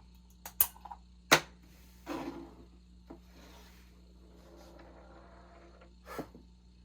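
A few sharp clicks and knocks, the loudest about a second and a half in, with short swishing rustles between them over a faint steady hum.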